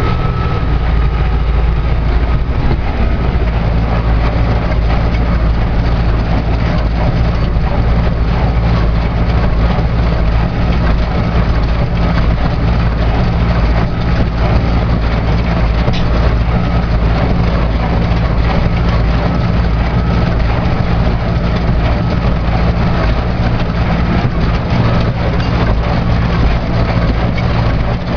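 Massey Ferguson 290 tractor's diesel engine running steadily under load while it drives a Welger 530 square baler, with the baler's mechanical clatter of many small clicks over the engine.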